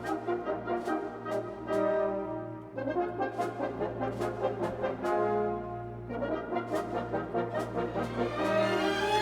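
Instrumental music with brass-like held chords that change every couple of seconds, over regular percussive hits and a steady low hum.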